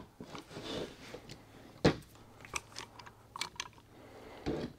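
Metal clicks and knocks as the crimping die is fitted into the head of a manually operated hydraulic AC hose crimper, with one sharper knock about two seconds in.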